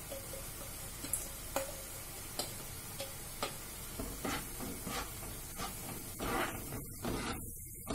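A plastic spatula scraping and tapping a steel bowl as spice paste is emptied into a frying pan, with clicks about once a second over a low sizzle of the tomato mixture cooking. Near the end the spatula stirs and scrapes in the pan.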